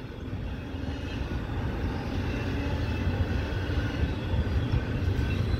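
Double-stack intermodal container cars rolling past on the rails, a steady low rumble of wheels on track that grows slightly louder.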